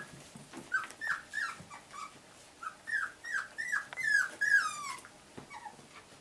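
Six-week-old Cocker Spaniel puppies whimpering: a string of about ten short high calls, each falling in pitch, the last one longer, growing fainter near the end.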